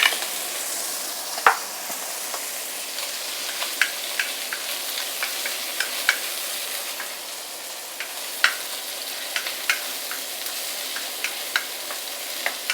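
Chicken pieces with chopped ginger and garlic sizzling in hot chicken fat in a wok: a steady frying hiss. Sharp clicks and scrapes of stirring against the wok come now and then, the loudest about a second and a half in and again past the middle.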